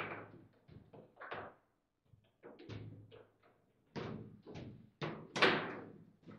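Foosball table in play: irregular sharp knocks and clacks of the ball, plastic figures and rods, about a dozen hits at an uneven pace, the loudest one about five seconds in.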